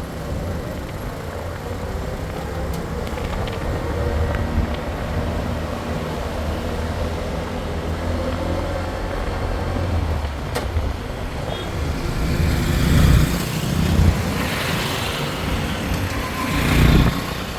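Road vehicle running with a steady low rumble of engine and road noise, growing louder and rougher in the last few seconds.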